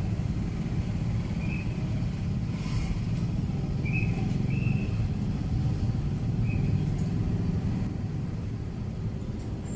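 Steady low background rumble, with a few short high chirps scattered through it.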